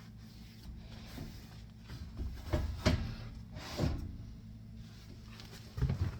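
A few dull knocks and bumps against a stainless steel stove as it is wiped dry with a microfiber cloth, over a steady low hum. The knocks come in a cluster about halfway through and again near the end.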